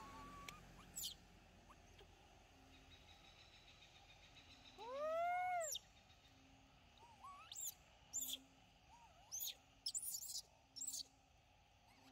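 Long-tailed macaques calling: one long coo that rises and falls in pitch about five seconds in, with short high chirps and small squeaks scattered through the rest.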